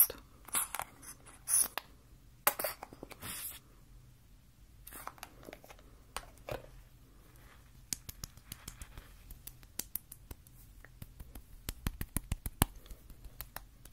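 Close-miked ASMR handling of face cream: several short scratchy rubbing strokes, one lasting about a second, then from about halfway on a run of quick, light sticky clicks and taps that grows denser near the end.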